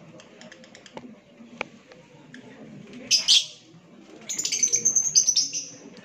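A flock of lovebirds chirping noisily: a short shrill burst about three seconds in, then a rapid run of high chirps lasting about a second and a half.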